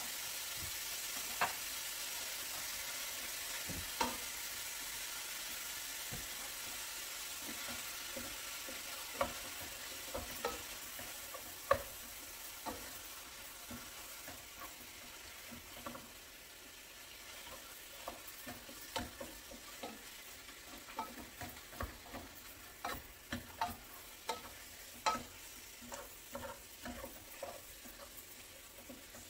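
Ground beef frying in a pot with a steady sizzle that slowly fades, while a utensil breaks up the meat with scattered knocks and scrapes against the pot.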